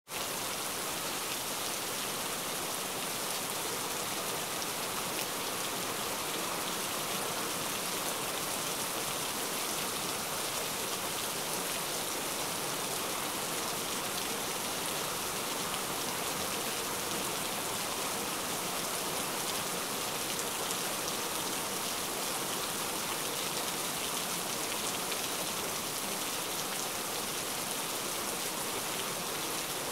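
Heavy rain falling steadily, a dense, even hiss of many close drops. There is no thunder.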